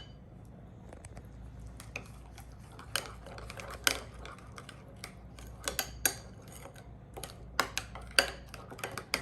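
Spoon stirring yogurt and spices in a bowl, with irregular sharp clinks of the spoon against the bowl.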